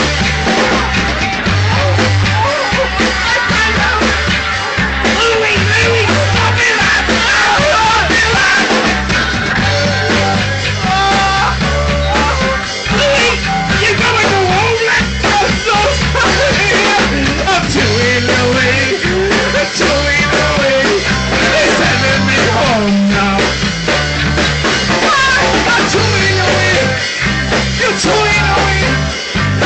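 Rock band playing a fast punk-style song live in rehearsal: drums, a repeating bass line and electric guitar, with singing over the top.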